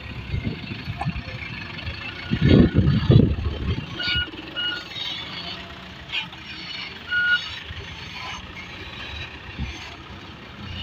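Loaded light dump truck's diesel engine running under load as it drives out of soft ground, revving hardest about two to three seconds in. Three short high beeps sound over it.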